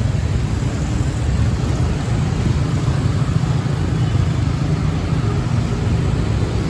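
Steady low rumble of street traffic: cars and motorcycles running along the street.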